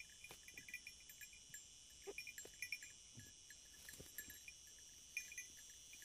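Faint outdoor ambience of insects chirping in a steady high chorus, with clusters of short chirps repeating. A few soft crunches, a couple of seconds in, fit the sheep tearing and chewing grass.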